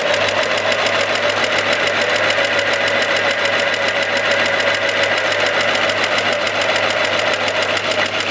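A battery-powered toy mini front-loading washing machine running its spin cycle, with a steady, fast buzzing whir.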